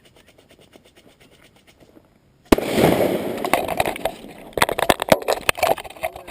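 A Tannerite binary exploding target detonating when hit by a rifle shot: one sudden loud blast about two and a half seconds in, dying away over the next few seconds with several more sharp cracks near the end.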